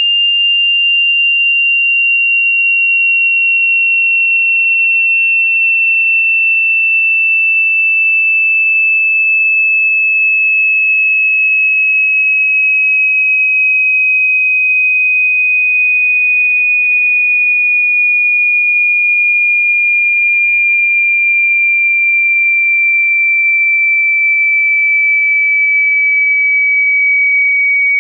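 Sine-wave speaker test sweep: a single high-pitched pure tone gliding slowly and steadily downward in pitch.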